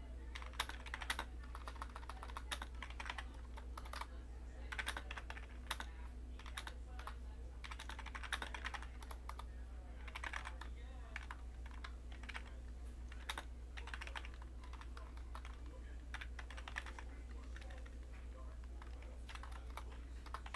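Computer keyboard typing: runs of quick key clicks in bursts with short pauses between them, over a steady low hum.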